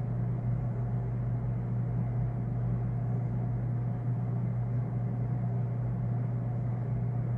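A steady low hum that holds unchanged throughout, with no clicks or chimes.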